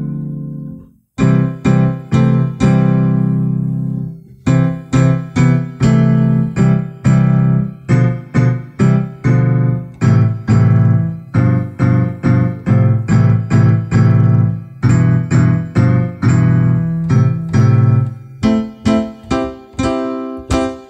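Electric piano or keyboard playing a tune, notes struck at a steady pace of about two a second over held low bass notes, with a short break about a second in.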